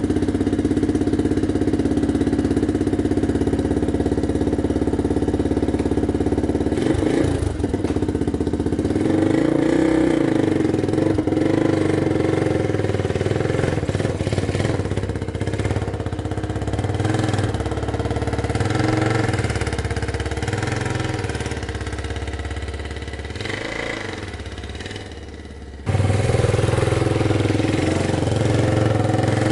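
Honda XL250S's single-cylinder four-stroke engine idling steadily, then revving up and down over and over as the bike rides off. Near the end the engine fades and then comes back suddenly loud.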